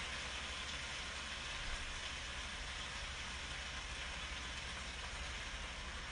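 Mixed vegetables sizzling in a hot pan on the stove with soy sauce just stirred in: a steady frying hiss over a low hum.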